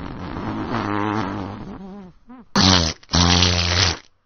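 Fart sound effects: a long rasping one whose pitch wavers and falls, then two loud, low, buzzy blasts near the end, a short one and then one about a second long.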